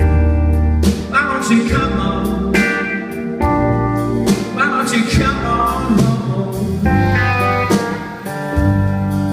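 Live blues-rock trio playing: electric guitar lines with notes that bend in pitch, over electric bass and a drum kit.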